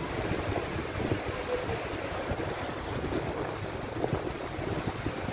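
Wind buffeting the microphone over a steady hiss of rain falling on a flooded quay.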